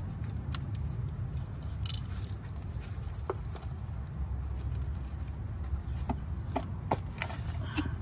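A coil-on-plug ignition coil being worked loose and pulled up out of its spark-plug well, giving scattered small clicks and plastic-and-rubber scrapes, most of them in the last couple of seconds. A steady low rumble runs underneath.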